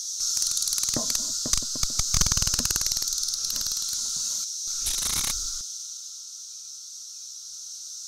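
Cicada chorus: a steady high-pitched drone. Over the first five seconds or so a louder, rapidly pulsing buzz from a nearer cicada rides on top of it, then drops away.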